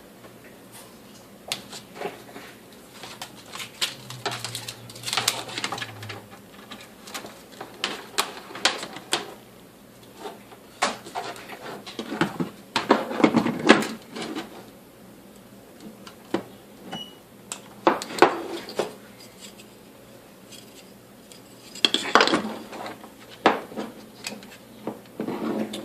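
Arrow ET2025 electric stapler being test-fired: a series of sharp metallic clacks at irregular intervals as the solenoid drives the plunger, with handling clatter between them. The stapler is working again now that the plunger's tension spring is back in place.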